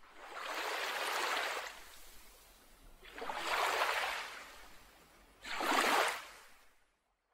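Ocean waves washing, three swells of rushing water a couple of seconds apart, the last one shorter and the loudest, then the sound cuts to silence near the end.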